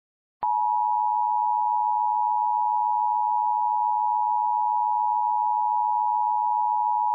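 Emergency Alert System attention signal: two steady pure tones sounding together (853 and 960 Hz), starting about half a second in and holding at an even level. It is the alert that announces an emergency broadcast message is about to follow.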